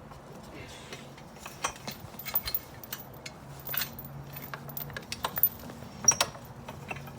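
Scattered metal clicks and clanks from the post puller and the freshly pulled fence post being handled, over a faint steady hum of an idling engine.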